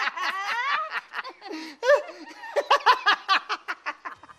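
A man and a woman laughing together in quick, repeated bursts.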